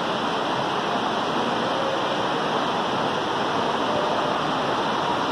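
Heavy rain making a steady rushing noise, heard from inside a large building.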